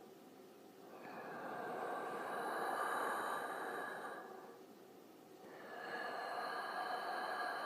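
Creepy breathing sound effect: two slow, drawn-out breaths, one starting about a second in and the next starting about five and a half seconds in, each lasting around three seconds, with a faint steady tone running through them.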